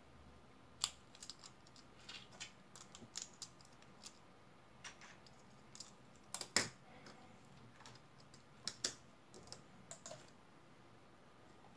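Small plastic LEGO pieces clicking and clattering as they are handled and fitted together: scattered light clicks, with a couple of sharper ones a little past the middle.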